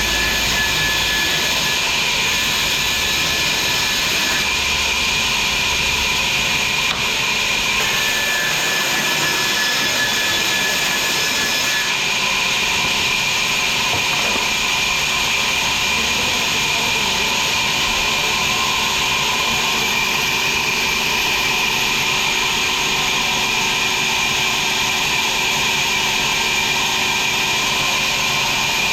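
Sawmill machinery running steadily: a loud, unbroken hiss with a faint whine, with no pauses or changes in load.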